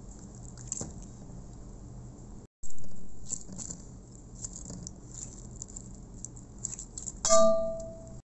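Metal spoon scraping soft boiled raw-mango pulp off the skin into a stainless steel bowl: soft wet squishing and scraping with light clicks. A dull thump comes about a third of the way in, and near the end the spoon knocks the steel bowl, which rings briefly.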